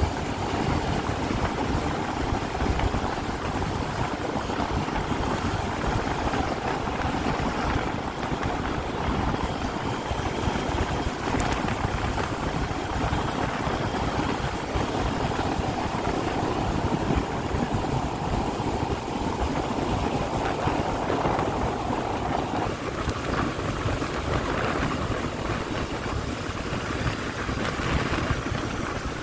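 Wind rushing over the microphone of a Yamaha Crypton S scooter riding at road speed, with the scooter's engine running underneath. About three-quarters of the way through, a mid-pitched hum in the noise stops suddenly.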